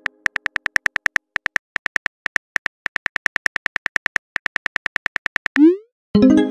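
Simulated phone keyboard clicks as a text message is typed, about seven taps a second with a few brief pauses, then a quick rising swoosh as the message is sent, followed by a ringing chime-like tone near the end.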